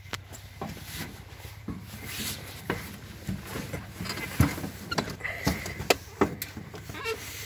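Scattered knocks, clunks and rustles as someone climbs up the step onto the seat of a T-25A tractor whose engine is not yet running, over a steady low hum.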